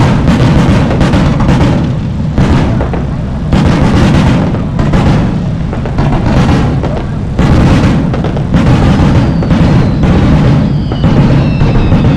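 Fireworks going off in rapid, irregular succession: deep booms with crackle between them. A few falling whistles come in near the end.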